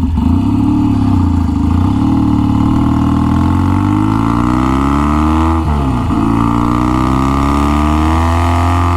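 1966 Triumph Bonneville T120TT's 650cc twin pulling hard under acceleration, its pitch climbing steadily. About six seconds in the pitch drops sharply at a gear shift, then climbs again.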